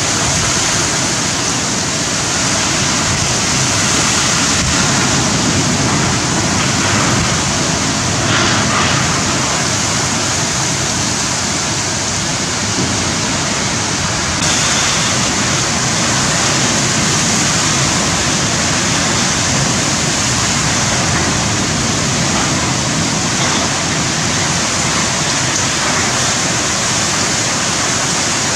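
Wind-driven heavy rain in a severe tropical cyclone: a loud, steady rush of pouring rain and strong wind.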